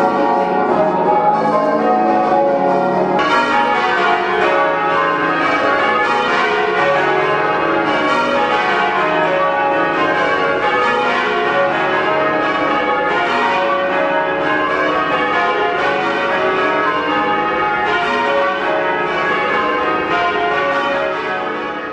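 The Swan Bells, a ring of church bells, being change-rung by bellringers: many bells struck in quick succession, their tones overlapping in a continuous peal.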